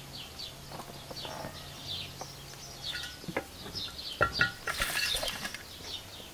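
Small birds chirping in a steady run of short, falling notes. A few sharp knocks and a brief rustle come about four to five seconds in, as carrots are handled on an enamel plate.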